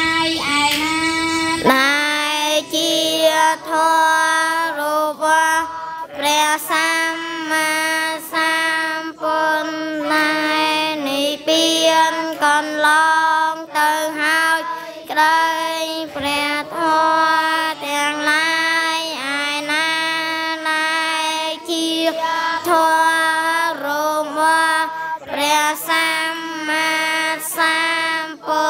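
Children chanting a Khmer Buddhist prayer in a steady, sing-song recitation on a held pitch, a girl's voice leading over a microphone.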